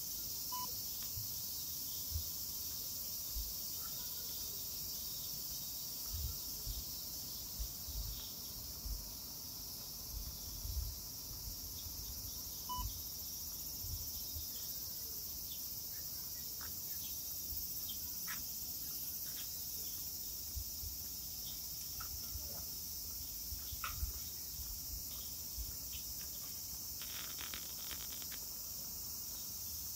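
Cicadas singing in a steady, dense high-pitched chorus, with occasional soft low bumps underneath.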